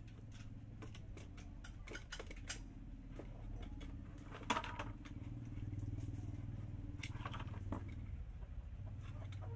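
Scraping and clicking of a blade cutting holes in a plastic bucket's wall, with a sharp click about four and a half seconds in. A steady low motor hum runs underneath and grows louder about halfway through.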